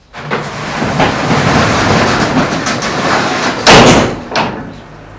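Metal roller-shutter garage door rattling as it is rolled. About four seconds in comes a loud clang, with a second, smaller clunk just after.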